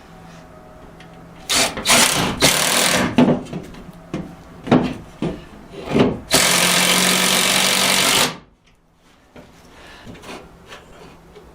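Power drill boring a bolt hole through sheetrock into a wooden wall stud. Short bursts of drilling come about two seconds in, then a few brief trigger pulses, then a steady run of about two seconds that stops suddenly near eight seconds in.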